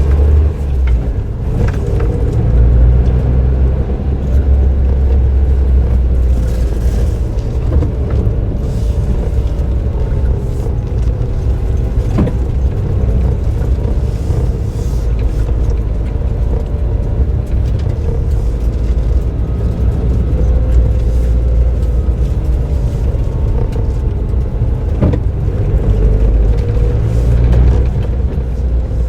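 Suzuki Jimny JB23W's 660 cc turbocharged three-cylinder engine, fitted with an aftermarket muffler, running under way with road noise: a steady low drone whose pitch drifts up and down with the revs, and a few sharp knocks from the road.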